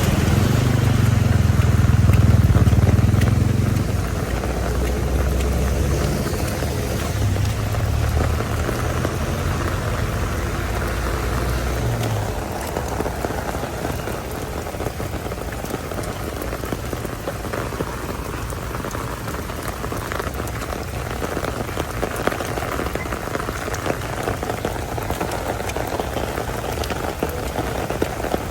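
Heavy rain falling and splashing on surfaces, a steady hiss. For the first dozen seconds a low vehicle rumble runs under it, loudest a couple of seconds in, then fades out.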